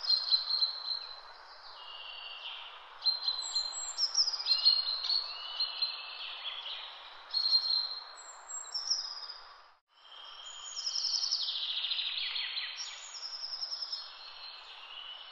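Several songbirds singing in woodland, with overlapping short repeated phrases and trills, over a steady rushing background noise. The sound drops out for a moment about ten seconds in.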